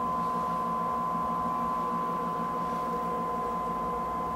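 GE Show 'N Tell Phono Viewer giving off a steady droning tone: a clear high note over several lower hum tones, unchanging and with no speech.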